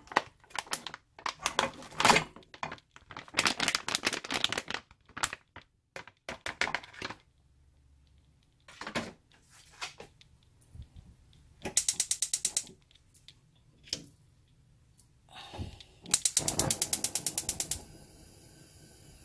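Knocks and clatter as a frozen block of yukgaejang is tipped from its pouch into a pot. Then a gas range's spark igniter clicks rapidly twice; the second time the burner catches, leaving a faint steady hiss of gas burning.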